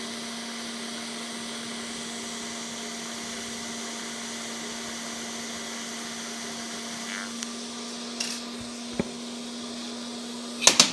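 TIG welding arc, a steady buzzing hiss with a constant hum. A few faint ticks come late, then two sharp metal knocks near the end.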